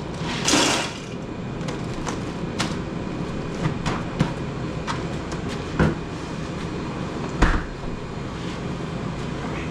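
Steady low rumbling noise with scattered clicks and rattles, and two heavier thumps in the second half, like a vehicle moving with loose things knocking about.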